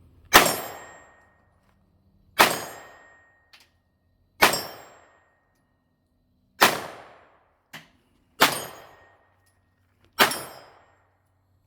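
Six single shots from a PSA AR-V 9mm pistol-calibre carbine, fired about two seconds apart, each with a short echoing tail. Two faint clicks fall between the shots.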